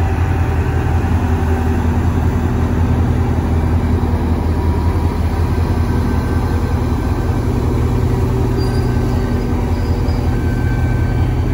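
Diesel locomotive passing close by, its engine running with a steady low drone.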